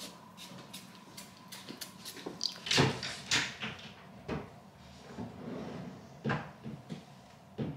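Knocks and clicks from a tall built-in wardrobe cabinet. Its door opens with two loud clacks about three seconds in, followed by scattered knocks as things are handled on its shelves.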